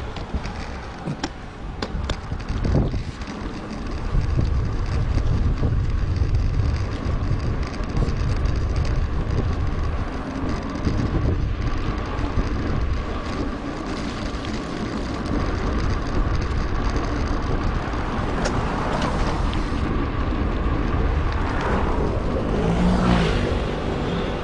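Wind rushing over an action camera's microphone while riding a mountain bike, with a steady low rumble of wind buffeting and tyre noise from the road.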